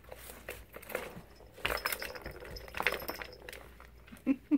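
Plastic balls clicking and rattling in the tracks of a tiered plastic ball-track cat toy as a cat bats at them: scattered light clinks and taps, loudest about a second and a half and three seconds in.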